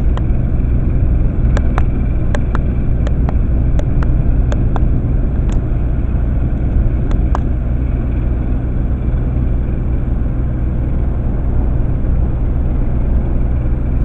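Ship's engine running with a steady low rumble and hum. A scatter of sharp clicks sounds through the first half.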